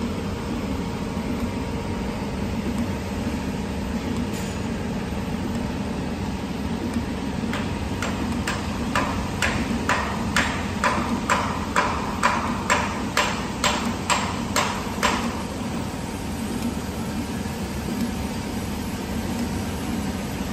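Camless CNC spring forming machine running on 0.3 mm wire: a steady mechanical hum, with a run of sharp metallic clicks from its tool slides, about two a second, lasting about seven seconds midway and then stopping.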